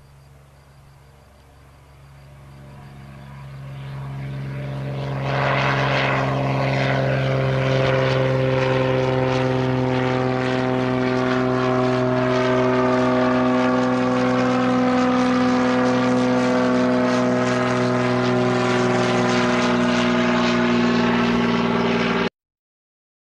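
A light propeller plane's engine drones as the plane flies over. It grows louder over the first few seconds, holds loud and steady, then cuts off suddenly near the end.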